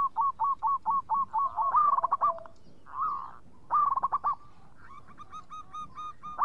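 Zebra dove (perkutut) singing: a quick run of short cooing notes, about five a second, with louder clusters of notes about two seconds in and again about four seconds in, and fainter notes near the end.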